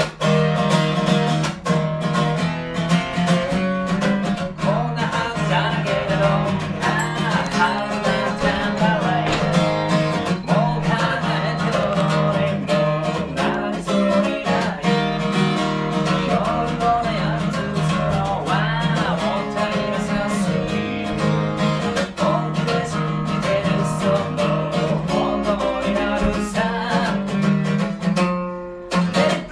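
Steel-string acoustic guitar strummed in a steady rhythm, with a short break just before the end.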